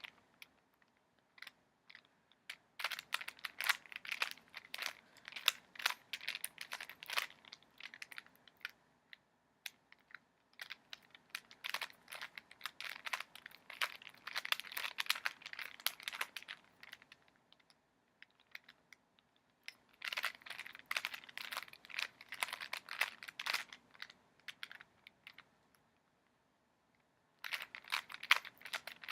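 Plastic Rubik's cube being turned by hand, its layers clicking and clacking in fast runs of turns broken by short pauses. The turns are the algorithms for placing the last-layer corners.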